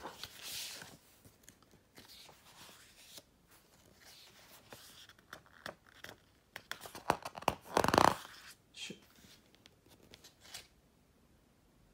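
Paper pages of a printed booklet rustling as they are handled and turned by hand, in scattered short rustles, with the loudest rustle about eight seconds in.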